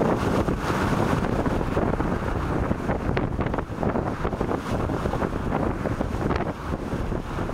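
Wind buffeting the microphone over the steady rush of bow wave and spray along the hull of a 1928 Fife-built wooden racing yacht sailing fast under sail.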